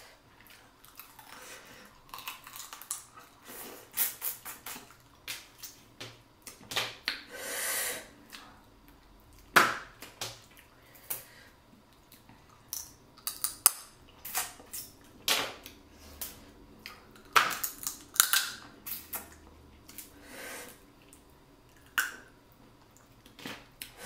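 Hard crawfish shells cracking and snapping at irregular intervals as they are broken open and peeled by hand, with a few longer wet sucking and eating sounds between the cracks.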